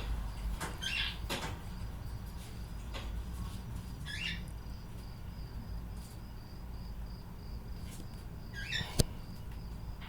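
A small pet eating, with faint nibbling ticks and three short squeaky chirps, about a second in, about four seconds in and just before nine seconds, followed by a single sharp click.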